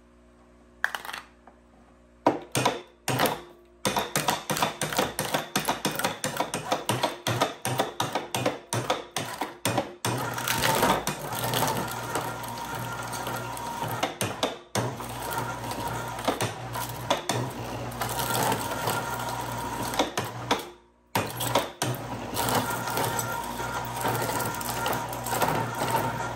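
Precious Plastic shredder's steel blades chewing up aluminum cans: a rapid run of sharp metallic cracks and crunches, then a denser, steadier grinding over a motor hum, breaking off briefly twice.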